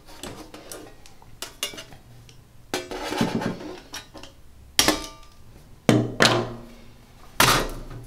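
A thin steel sheet and a hand nibbler handled on a wooden desk: metallic clatter with the sheet ringing briefly, and three loud sharp metal clacks in the second half.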